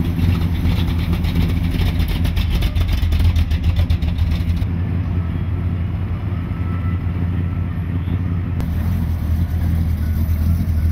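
Car engine idling steadily with a low, even hum. For the first few seconds a rapid, regular pulsing sits on top of it.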